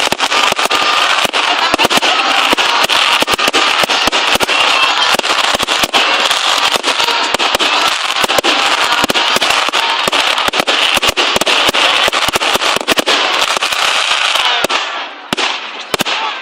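Fireworks going off in rapid succession: a dense, continuous crackle packed with sharp bangs. About three seconds before the end it thins out to a few separate bangs.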